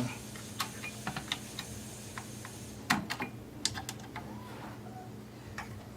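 Scattered light clicks and taps of screws and small parts being handled and fitted as a VHS/DVD combo player is put back together, the sharpest click about three seconds in.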